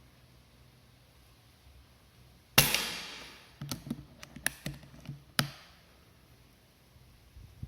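A custom .177 regulated P15 PCP air rifle fires one loud shot about two and a half seconds in. It is followed by a run of small clicks and a sharper snap a few seconds later, typical of the bolt being worked to load the next pellet.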